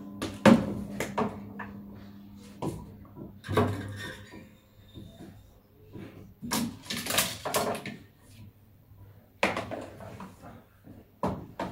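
Small objects in a heaped pile being knocked and shifted by hand: scattered clicks, taps and light clatter, with a busier run of knocks around the middle and a sharp knock near the end.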